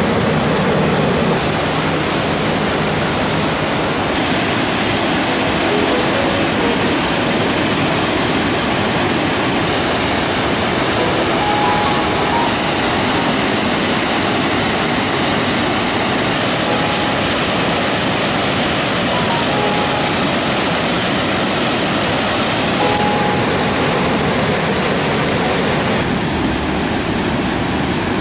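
Small waterfalls in a mountain stream, water rushing and splashing steadily over granite boulders.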